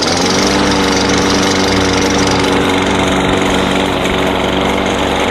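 Kohler Courage XT6 149cc engine on a Husqvarna lawn mower, just started after its carburetor was cleaned: the revs climb over the first half second, then it runs steadily at speed.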